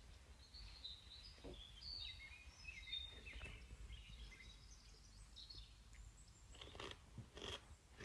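Near silence with faint, high, short bird chirps, and a few soft clicks and rustles in the later seconds.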